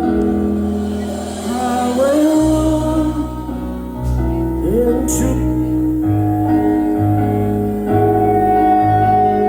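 Live band playing sustained keyboard chords over a bass line that changes every second or so, with a few short sliding notes about 2 and 5 seconds in.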